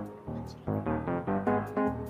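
Background music: a bouncy tune of short pitched notes in a steady rhythm.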